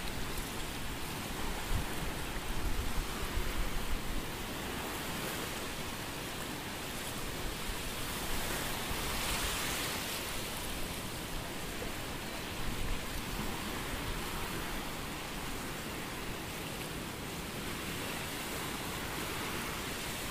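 Swollen Cauvery River floodwater rushing and surging across a road, a steady rushing noise. Gusts of wind buffet the microphone for the first few seconds.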